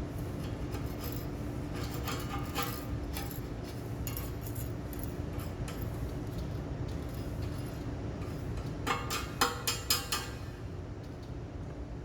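Metal clinking and tapping: a few sharp metallic knocks that ring briefly, in a small group early on and a louder group near the end, over a steady machine hum.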